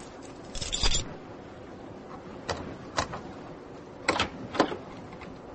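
Sound effects of a door being unlocked and opened: a short rattle about half a second in, then about five sharp clicks and knocks of the lock and latch.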